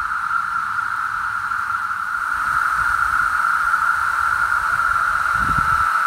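Chorus of Magicicada septendecim periodical cicadas: a dense, steady droning hum, with a few low bumps near the end.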